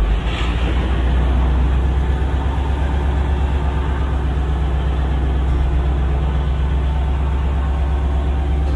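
Diesel engine of a Saen Saep canal express boat running steadily: a loud, low, even hum.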